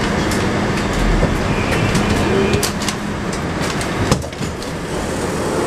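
Inside a Moscow Metro 81-765.2 train car as it slows into a station: running and rail noise with a steady hum that stops about two seconds in, scattered clicks, and one sharp click about four seconds in, after which it is a little quieter.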